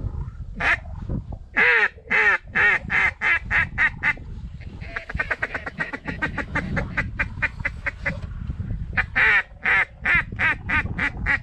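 Mallard-type quacking: a series of loud nasal quacks, about three a second, then a faster run of short quacks in the middle, then more loud quacks near the end.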